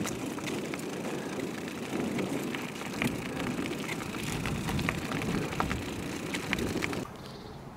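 Bicycle tyres rolling over a gravel track: a steady crackling crunch of small stones. It drops away abruptly about seven seconds in, leaving a quieter hiss.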